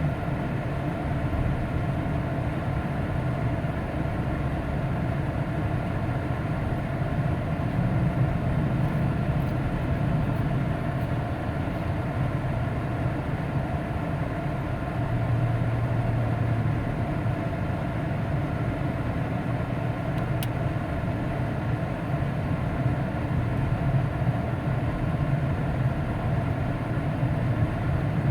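Steady rumble of a motor vehicle driving, engine and road noise running on without change.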